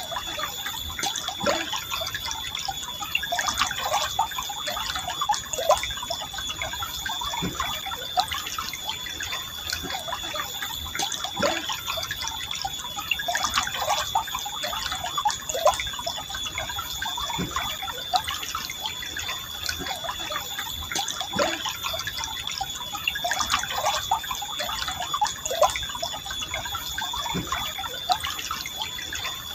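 Forest stream flowing gently, an even watery rush dotted with many small gurgles and plops. A steady high-pitched tone runs underneath.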